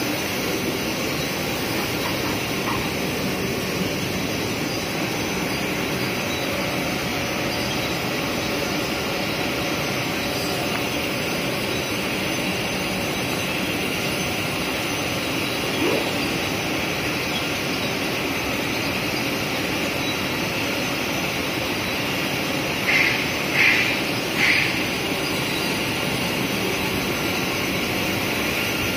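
Servo-driven six-colour rotogravure printing machine running steadily on BOPP plastic film: a continuous mechanical whir and hum from its rollers and drives. Three brief high-pitched sounds come about three-quarters of the way through.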